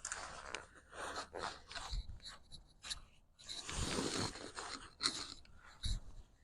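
Rustling and scraping of fabric as the pop-up baby canopy and its mat are handled, in irregular bursts, the longest about four seconds in.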